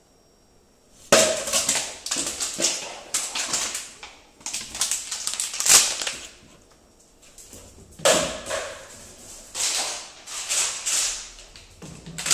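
A Labrador's claws scrabbling and clattering on a hard floor and a small wooden table as she runs, jumps on and scrambles off it, in two bursts of quick strokes, the first starting about a second in and the second about eight seconds in.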